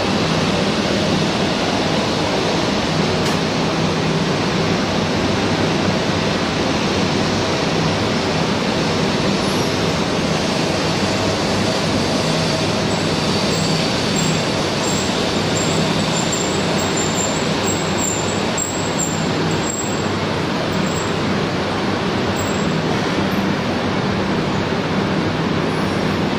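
Tohoku Shinkansen 200 series train moving past a platform: a steady rushing noise of wheels and running gear over a low hum.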